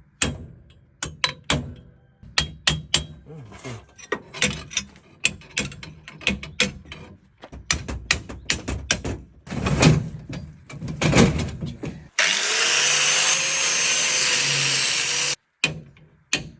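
Hand work on metal: a long run of sharp clicks, knocks and clanks from tools on the combine's conveyor beam and bolts as the bent beam is taken off. About twelve seconds in, a power tool runs steadily for about three seconds with a whine that wavers in pitch, then cuts off suddenly.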